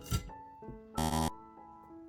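Background music of held keyboard notes, with a short click just after the start and a loud, brief buzz about a second in.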